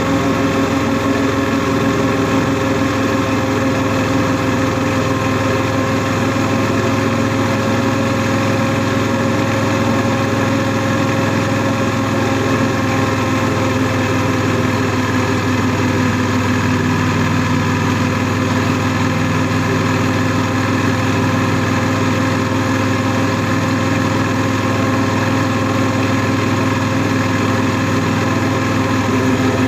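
Honda NC700S motorcycle's 670 cc parallel-twin engine running steadily at a nearly constant speed, with a faint hiss of noise over it.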